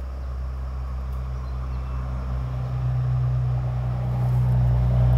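A low, steady engine hum that grows gradually louder.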